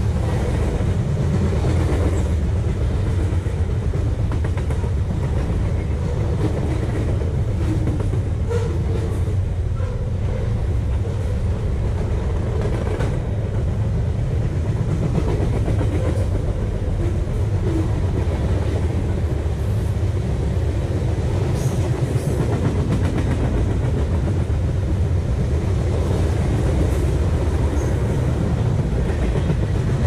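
Freight cars of a CSX manifest train rolling past at the trackside: a steady, loud rumble of steel wheels on rail. Gondolas give way to tank cars near the end.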